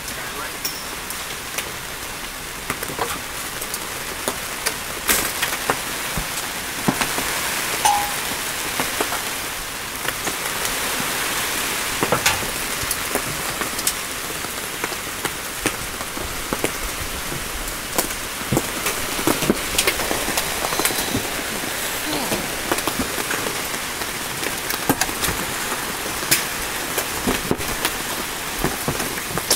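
Heavy hailstorm with rain: a steady hiss of rain and hail falling, broken by many sharp, irregular knocks of large hailstones striking.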